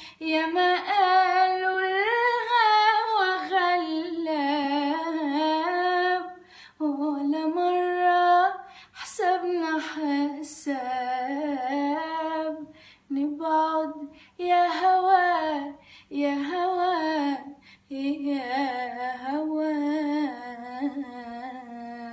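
A woman singing unaccompanied, with no instrument or effects, in long phrases whose pitch wavers and slides in ornaments, with short breaths between them. She ends on a long, steady low note.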